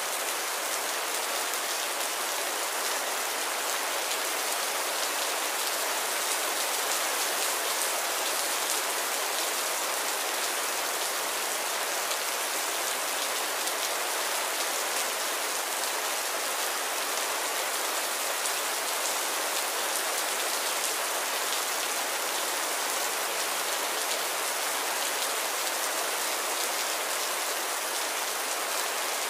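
Heavy rain falling, a dense, steady hiss of drops.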